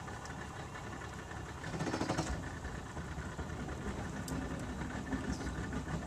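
Tour boat's engine idling steadily with a low hum.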